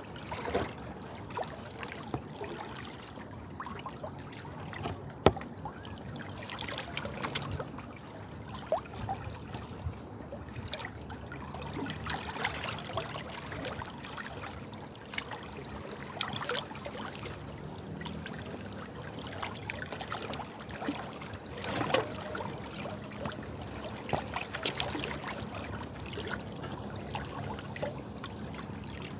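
Water flowing and trickling steadily, with irregular sharp drips and splashes scattered through it.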